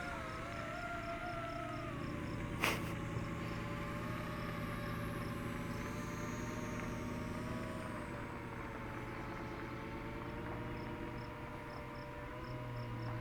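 DJI FPV drone's motors whining, the pitch wavering and then settling lower as it flies back, over a steady low hum. A single sharp click a little under three seconds in, with insects ticking steadily in the background.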